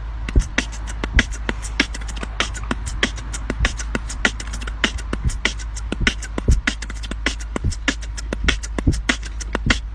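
A rapid, irregular run of sharp clicks and taps, several a second, over a steady low hum; it cuts off abruptly at the end.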